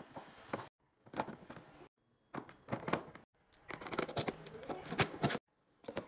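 Carrots and then green bell peppers being set into clear plastic fridge storage bins: light knocks, taps and rustles of produce against the plastic. The sound comes in short bursts, broken several times by sudden dead silences.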